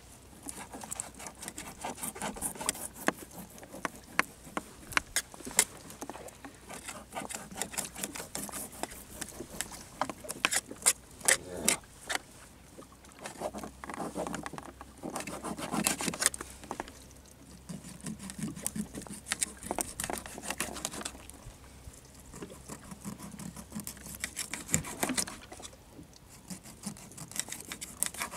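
Knife scraping the scales off a small fish and then cutting it into pieces against a boat's gunwale: a rapid run of scratchy strokes and clicks.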